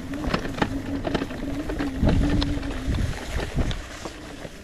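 DYU A5 folding e-bike ridden over bumpy dry grass. Its electric motor gives a steady whine that stops about three seconds in, over a low rumble of wind and tyres. Sharp rattles and knocks from the bike come all the way through.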